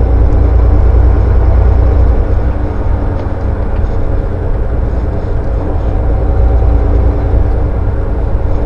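Semi truck's diesel engine and road noise heard from inside the cab while cruising: a steady low drone with a constant engine hum, easing off a little for a few seconds in the middle.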